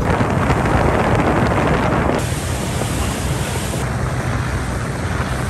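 Wind buffeting the microphone and water rushing past a moving boat, over the steady low hum of the boat's motor. The rush is loudest for the first two seconds, then eases.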